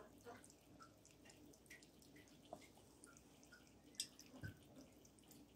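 Cat lapping water from a glass goldfish bowl: faint, irregular little drips and plinks several times a second, with a sharper tick about four seconds in.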